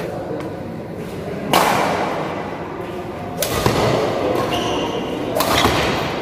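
Badminton rally: three sharp racket strikes on the shuttlecock, about two seconds apart, each echoing briefly in the hall.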